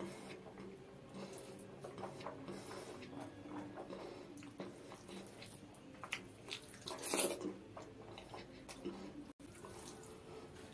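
Close-miked wet eating sounds: chewing a mouthful of rice and dal with small lip smacks and clicks, and fingers squishing through the dal-soaked rice. A louder wet burst comes about seven seconds in.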